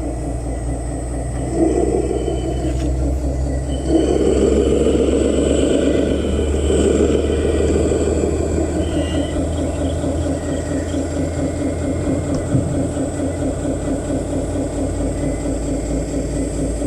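Heavy construction-machine engine running with a steady rumble and an even, fast chugging pulse, growing louder about four seconds in.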